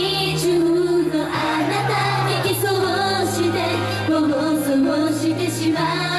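Female J-pop idol group singing live over a pop backing track, with a synth bass line moving in long held notes.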